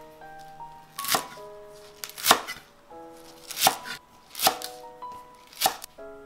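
Kitchen knife chopping a bundle of Chinese chives on a wooden cutting board: five sharp chops a little over a second apart, each blade striking the board. Background music plays underneath.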